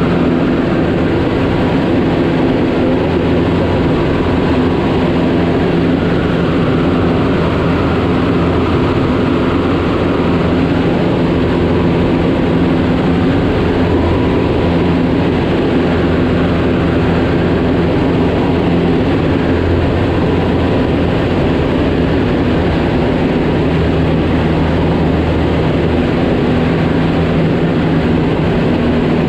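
Cessna 152's four-cylinder Lycoming engine and propeller droning steadily in cruise, heard loud from inside the cockpit, with a constant engine hum over a rushing noise.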